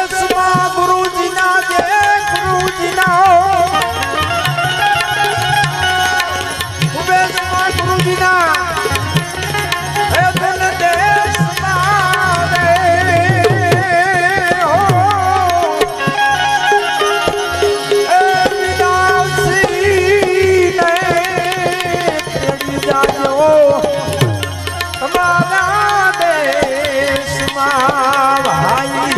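Instrumental interlude of a Gujarati bhajan: tabla playing a steady beat under a wavering melody line.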